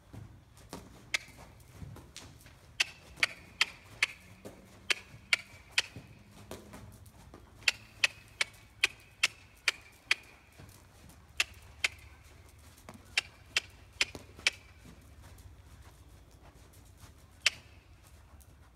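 A person clicking their tongue to urge a horse on at the trot: sharp clicks in short runs of about two or three a second, with pauses between the runs.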